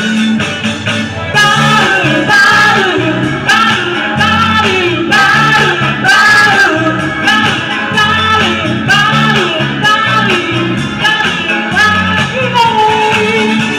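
Live karaoke: singers on microphones over a loud backing track with a steady beat, bass and guitar.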